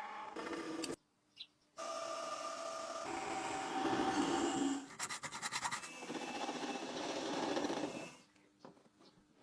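Metal machining on a lathe: a cutting tool scraping against metal over the hum of the machine, in short clips that cut off abruptly several times. There is a run of rapid clicks about five seconds in.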